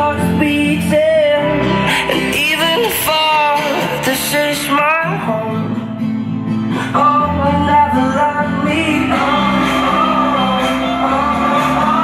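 A pop song playing loud, with a singing voice over a heavy bass line that changes note every second or two.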